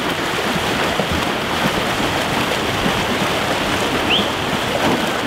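Swimmers splashing as they swim butterfly, a steady wash of churning water. A short rising chirp comes about four seconds in.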